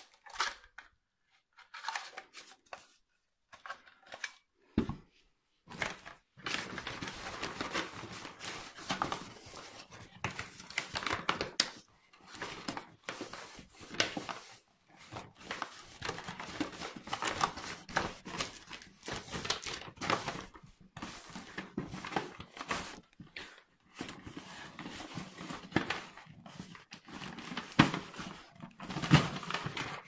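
Packaging rustling and crinkling as hands rummage in a cardboard box, with a few knocks and clicks from handling in the first seconds.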